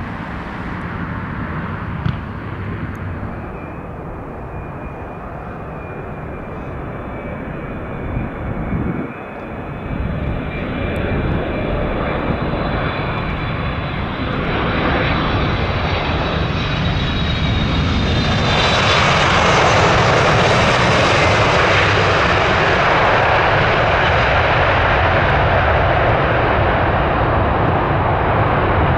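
Jet airliner's turbofan engines, a steady high whine over a rumble that swells into a much louder roar about two-thirds of the way in.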